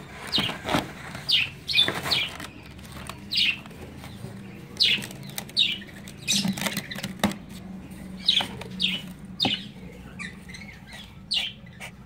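Small pet parrots chirping: short, falling calls repeated irregularly, one or two a second, with a few light knocks between them.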